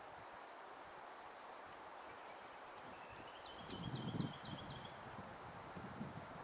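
Faint outdoor ambience with a small songbird singing: a few high chirps, then a quick run of repeated high notes past the middle. A brief low rumble comes about four seconds in.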